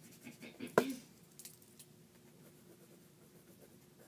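Pens scratching faintly on sketchbook paper during drawing, with one sharp tap just under a second in, over a faint steady room hum.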